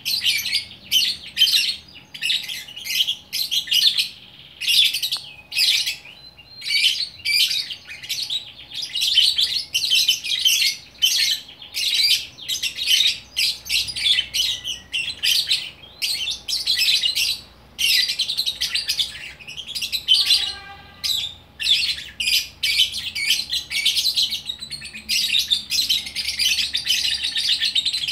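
Lovebird chattering in long, rapid runs of shrill high chirps and twitters, with short breaks between runs and a brief pause about 20 seconds in.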